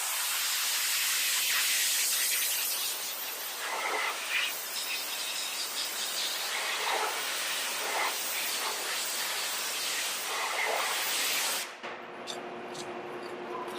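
Air blower hissing steadily as it blows rinse water off a freshly wet-sanded headlight lens to dry it, cutting off suddenly near the end.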